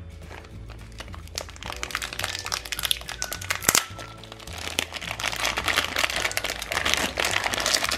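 Thin clear plastic bag crinkling and crackling as it is handled and pulled open, busier and louder in the second half, with one sharp snap near the middle; light background music plays underneath.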